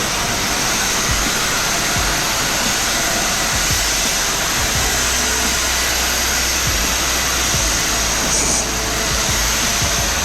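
Pressure washer running and spraying, a loud steady hiss of the water jet rinsing a pool cage's screen enclosure.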